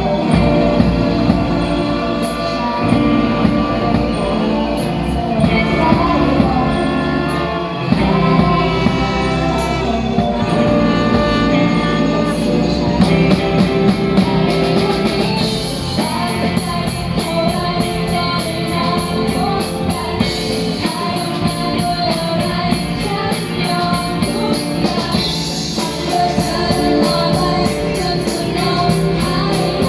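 A live band playing a pop song with singing. A steady, bright beat comes in about halfway through.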